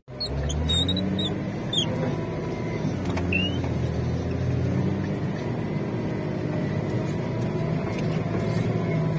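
A vehicle engine running steadily at a low, even pitch, with a few brief high squeaks in the first two seconds.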